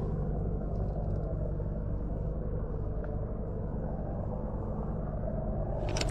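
Steady low rumble with a faint hum. A little before the end comes a sudden rush of brighter noise as the spinning rod is swept up to set the hook on a fish.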